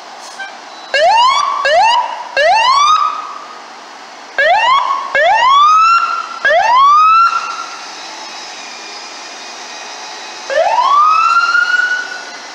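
Fire engine siren whooped in short bursts: seven quick rising sweeps, in two groups of three and then a single longer one near the end that climbs higher and holds briefly before cutting off.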